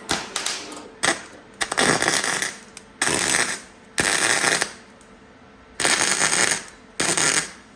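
Flux-core wire welder laying quick tack welds on sheet metal: about seven short bursts of crackling arc, each under a second, with brief pauses between.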